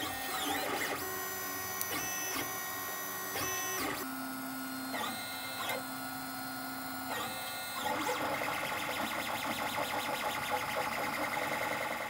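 LulzBot TAZ 3D printer running a print: its stepper motors whine in steady tones that jump to a new pitch every second or so as the print head changes direction and speed. For the last few seconds the whine turns into a rougher, rapidly pulsing buzz.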